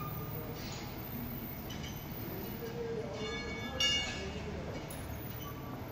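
Metal tools clanking during a bus wheel change: one sharp metallic clang that rings briefly a little under four seconds in, over a steady low hum.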